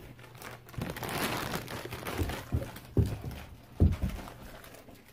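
Footsteps thumping irregularly on the floor as a child walks, with rustling from a carried bag and the phone being handled.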